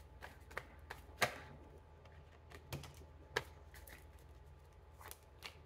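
A deck of tarot cards being handled and shuffled, with a card laid on the table: soft, irregular clicks and taps, the loudest about a second in.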